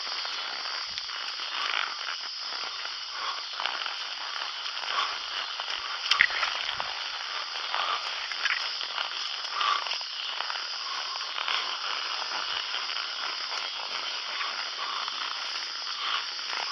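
Steady high-pitched droning of insects, with scattered faint rustles and one sharp knock about six seconds in.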